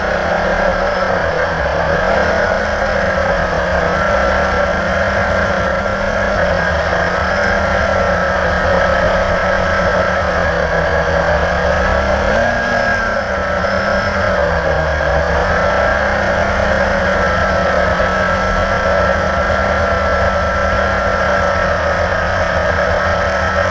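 Blade 350 QX quadcopter's electric motors and propellers whirring steadily, the pitch of the hum shifting up and down every few seconds as the motors adjust.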